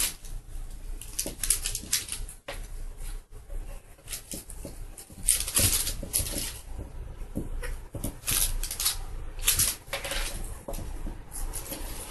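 A small monkey scampering and scrabbling on a wooden floor as it plays with a cat-teaser toy: quick pattering and short rustling scrapes in irregular bursts.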